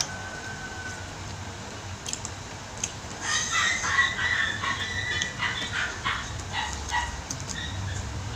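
A run of short, high animal cries for about four seconds, starting about three seconds in, heard in the background.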